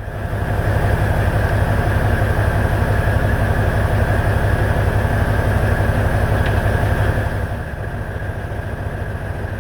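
Diesel engine of a Peterbilt semi truck idling steadily with a fast, even low pulse, a little quieter after about seven and a half seconds.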